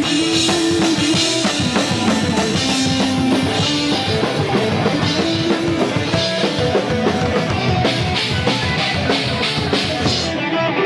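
Heavy metal band playing live, the drum kit prominent with bass drum and snare hits under held pitched instrument notes, loud and steady throughout.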